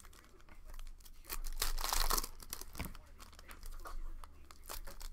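Foil trading-card pack wrappers crinkling and tearing as packs are opened and cards handled, loudest as a burst of crackling around one and a half to two seconds in.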